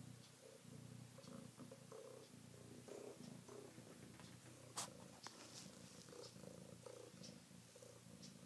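Domestic cat purring: a faint, steady low rumble. A short sharp click comes about five seconds in.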